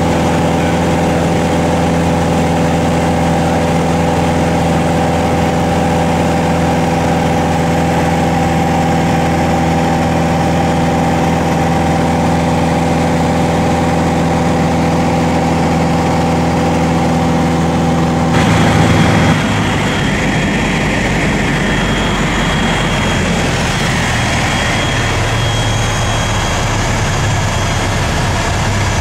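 Piper PA-28 light aircraft's piston engine and propeller droning steadily, heard inside the cabin. About two-thirds of the way through the sound changes abruptly to a hissier drone with a faint high steady whine.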